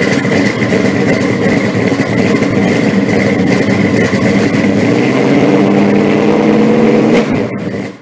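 A car engine running steadily, with a thin steady whine above it; it drops away about seven seconds in and fades out.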